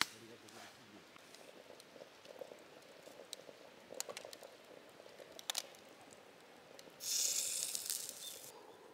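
Aluminium stovetop moka pot, a Bialetti-style copy, brewing over a small wood fire, with the fire giving faint scattered crackles. About seven seconds in, the pot hisses and sputters for about a second and a half as the coffee rushes up into the top chamber, the sign that the brew is finishing.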